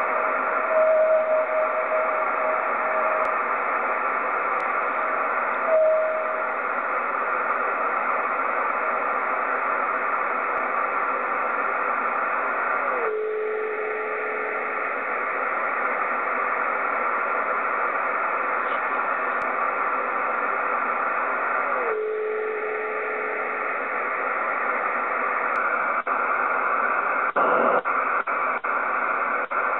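VHF radio receiver hiss with meteor-scatter pings: a TV station's 49.750 MHz carrier reflected off meteor trails, heard as brief whistling tones. There is a steady tone about a second in, a short one about six seconds in, and two that slide down in pitch at about 13 and 22 seconds. A few crackles come near the end.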